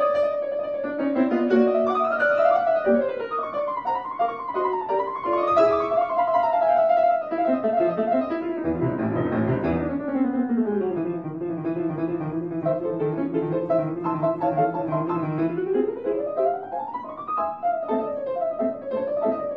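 Instrumental music led by piano, with quick runs of notes rising and falling and a long held low note about halfway through.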